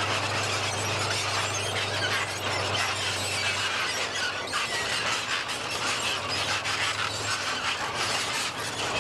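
T-55-type tank driving across grass: high-pitched squeal and clatter from its steel tracks over a steady low engine drone, which weakens about four seconds in and fades out near the end.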